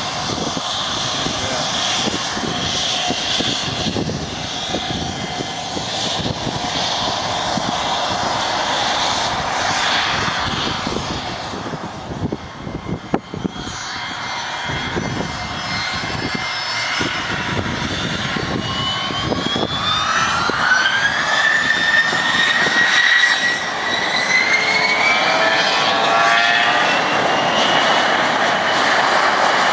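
Gulfstream G-IV's Rolls-Royce Tay turbofans running as the jet rolls along the runway, then spooling up with a rising whine a little past halfway, growing louder as it goes to takeoff power.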